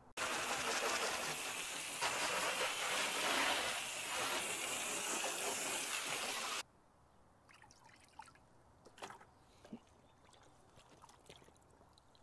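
Water spray rinsing iron remover off a car's paint, a steady hiss that starts suddenly and cuts off after about six and a half seconds. Faint scattered ticks follow.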